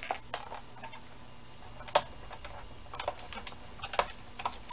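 Light clicks and taps of hard plastic pieces being handled: the Sizzix Big Shot die-cutting machine's packaged cutting plates and accessories knocked and shifted on its platform. The sharpest click comes about two seconds in, and a quicker run of clicks follows near the end.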